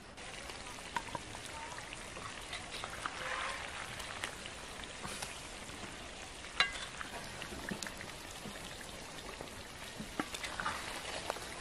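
Cooked goose in a pot over a fire sizzling steadily, with a wooden spatula scraping and clinking as pieces are lifted onto a ceramic plate. There is one sharp knock about six and a half seconds in.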